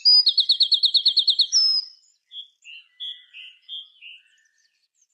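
A songbird singing a fast trill, about eight notes a second, for the first second and a half, followed by a string of softer, lower chirps.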